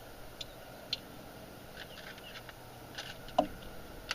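Faint, scattered clicks and light handling noises of small objects being picked up and worked, with one sharper click a little over three seconds in.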